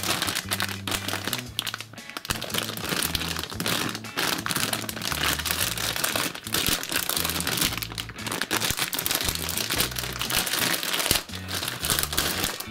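Clear plastic bag crinkling as hands pull and work it open, over background music with a low, stepping bass line.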